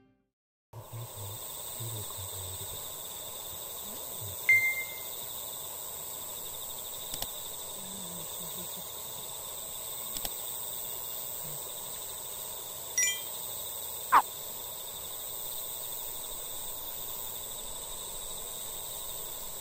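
Crickets chirring steadily at a high pitch. A short call sounds about four and a half seconds in. A sharp whistle falls steeply in pitch at about fourteen seconds, the loudest sound here.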